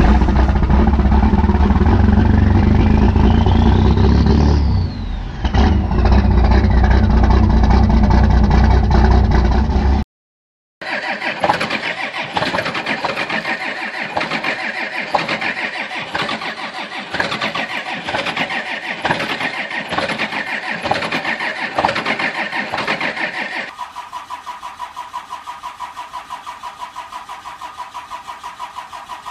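Cummins diesel truck engines cold starting and running, three in turn. The first, very loud through twin exhaust stacks, carries a whine that rises and falls about two to six seconds in; after a short break a second runs with an uneven, pulsing beat while blowing white smoke; from about twenty-four seconds a quieter third, a first-generation Dodge Ram's Cummins, runs with an even pulsing beat.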